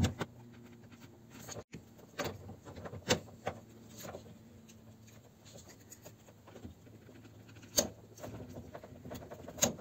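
Scattered sharp clicks and metallic knocks of an adjustable wrench and a torque wrench working on the brass flare nuts of a mini-split heat pump's copper refrigerant lines, one click standing out loudest about eight seconds in, over a faint steady hum.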